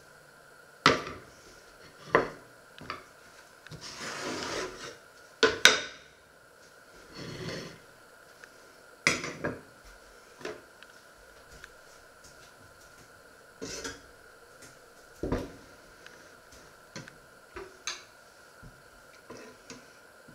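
Kitchen handling sounds: scattered knocks and clatters of metal tongs, a pot holder and a steel pot being moved and set down on a wooden worktop, with a couple of short stretches of rustling between them.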